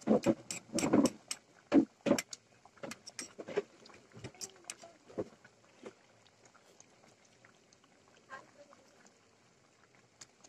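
Catfish and coconut milk simmering in a stainless steel pot: thick sauce bubbling with irregular pops and blurps, loudest and thickest in the first couple of seconds, then sparser.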